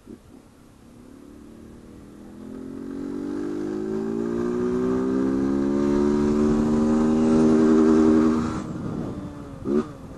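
Honda CG 160 Fan motorcycle's single-cylinder engine, running with its intake hose removed, in one long acceleration: the engine note climbs steadily in pitch and grows louder, then cuts off suddenly about eight and a half seconds in. A short sharp burst follows about a second later.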